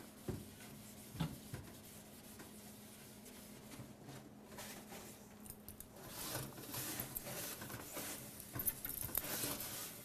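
Damp scouring sponge scrubbing the inside walls of a microwave oven, faint at first with a couple of light knocks, then louder strokes in the second half.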